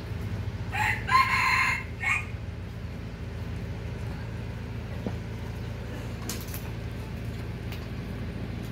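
A rooster crows once, about a second in: a short opening note, a long middle and a short tail. A steady low hum runs underneath, and a few faint clicks follow later.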